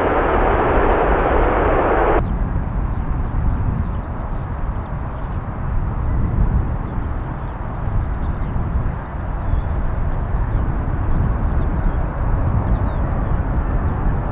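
A landing Airbus A320's jet noise, a loud steady rush, cuts off abruptly about two seconds in. After that, gusting wind rumbles on the microphone.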